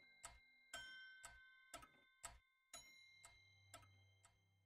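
Quiet closing background music fading out: a clock-like ticking beat at about two ticks a second under faint held notes.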